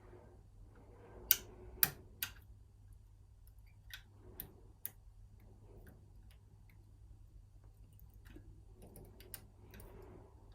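Small metallic clicks and scrapes of a piano-wire pick and tension tool working the levers of a 5-lever mortice lock. Three sharp clicks come close together about a second and a half in, followed by lighter ticks scattered through the rest.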